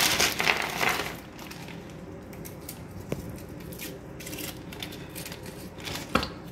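Foil-wrapped Hershey's Kisses candies rattling and rustling as they are handled out of their bag, loudest in the first second. Quieter handling follows, with a sharp click near the end.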